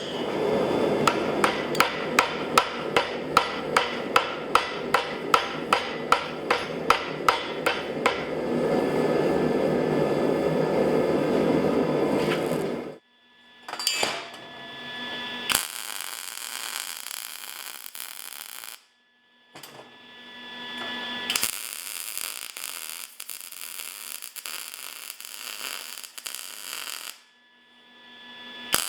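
Rapid hammer blows on an anvil while forging, about two to three strikes a second for roughly eight seconds, each ringing, over a steady rushing noise. After an abrupt cut come quieter shop sounds with scattered knocks and scrapes.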